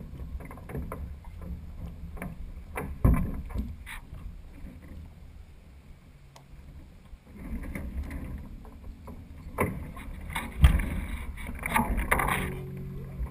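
Water sloshing and lapping against a Weta trimaran's hull at low speed, with low wind rumble on the bow-mounted microphone. A few sharp knocks come from the boat, the loudest about three seconds in and again near eleven seconds.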